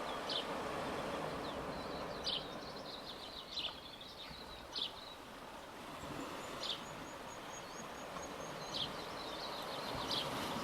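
Steady wash of small waves on a bay, with birds giving short sharp high chirps every second or two and a brief thin, rapid high ticking series in the middle.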